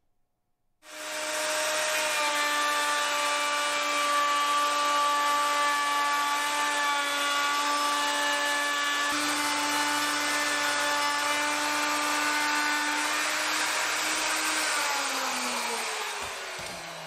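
Handheld router with a bearing-guided chamfer bit starting up about a second in and running with a steady whine while cutting along a board's edge. Near the end it is switched off and the whine falls in pitch as it spins down.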